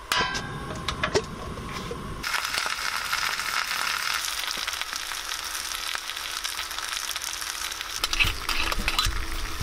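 Handling noises with a few clicks, then about two seconds in a steady sizzle starts suddenly, like food frying in a hot pan, and keeps going.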